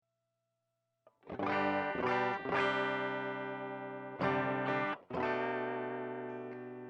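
Electric guitar played through an effects pedalboard with some drive, striking about five chords after a second of silence, the last chord left ringing.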